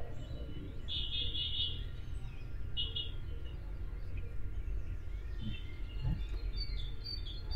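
Small birds chirping in short bursts, a few times, over a steady low rumble.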